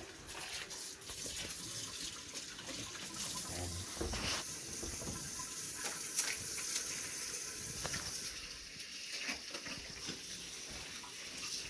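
Kitchen tap running warm water into a sink while hands are washed under it, with splashing and a few small knocks.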